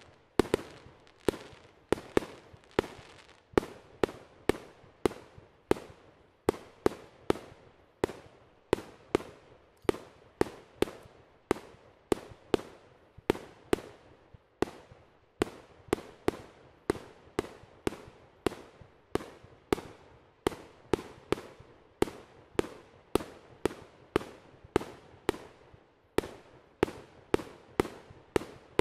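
A firework cake firing shot after shot from one spot: a long, even string of sharp bangs, about two a second.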